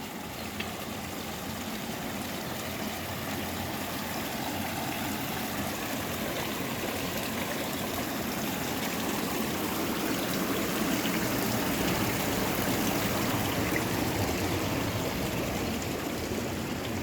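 Steady rush of water in an old mechanical washing machine, with no electronics, swelling slightly in the middle and easing a little near the end.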